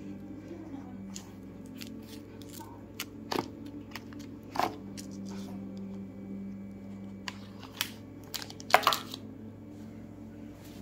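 An iPhone 12 Pro Max retail box being opened by hand: the lid is lifted off and the plastic wrap is handled, giving scattered clicks, knocks and crinkles. The loudest cluster comes about nine seconds in, over a steady low hum.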